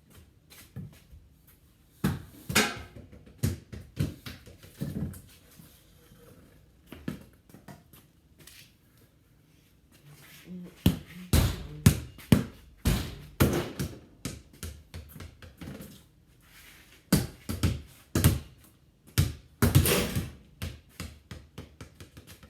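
Basketball being hit and bouncing off a garage door and the ground: a run of sharp thuds at irregular intervals, coming in clusters with a quieter stretch around a third of the way in.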